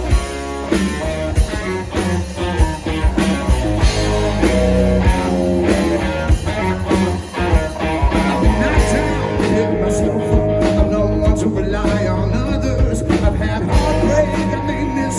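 Live country band playing an instrumental break between verses, with drums keeping a steady beat under guitar.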